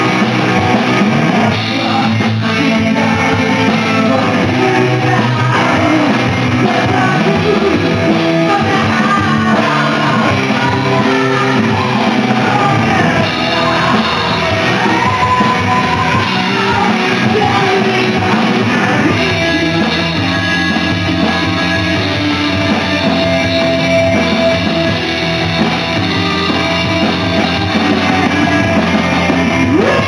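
Rock band playing a song live, with a lead vocal over electric guitar, bass, keyboard and drums. The band's sound grows fuller and brighter about two-thirds of the way through.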